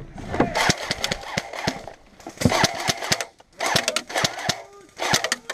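Airsoft guns firing: short irregular volleys of sharp pops and clicks, coming in clusters about every second or so.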